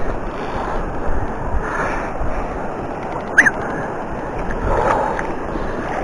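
Steady rush of flowing river water, with wind buffeting the microphone in low gusts. There is one sharp click about three and a half seconds in.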